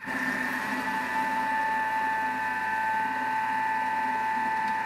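Countertop food-processor motor starting suddenly and running at a steady speed with a high, even whine, whipping frozen fruit paste and egg white into a sorbet-like whip.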